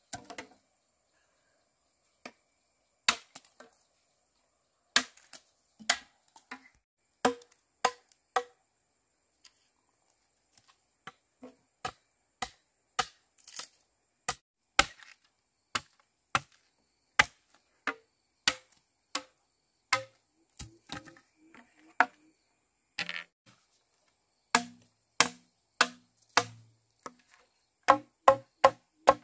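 Repeated chopping strikes, sharp and irregular, about one to two a second with pauses between, each with a short hollow knock.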